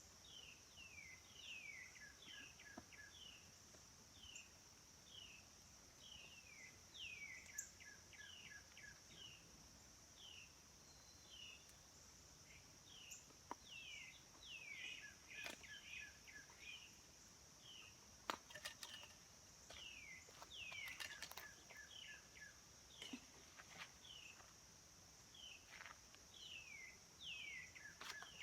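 Faint outdoor ambience: a steady high-pitched insect drone, with birds calling over it in short falling chirps every second or so and brief runs of quick repeated notes. A few soft clicks or knocks sound now and then, most around the middle and near the end.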